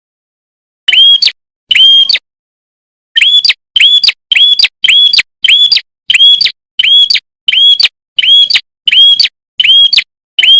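Prenjak (prinia) calling: a loud, sharp chip note repeated about fourteen times, with two spaced notes early on and then a steady run of about two a second. The notes are identical and the gaps between them completely silent, as in an edited, looped recording.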